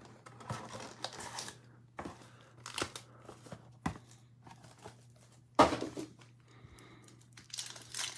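Plastic wrapping on a trading card box and packs being torn open and crinkled in short, irregular rustles, loudest about five and a half seconds in.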